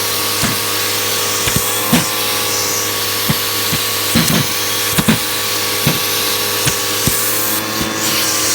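Hoover vacuum cleaner running with a steady motor hum, with irregular knocks and bumps every half second to a second.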